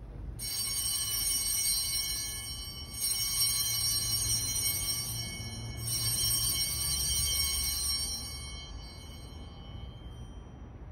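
Altar bells rung three times at the elevation of the chalice after the consecration, each ring a shimmer of high bright tones that fades away after the third.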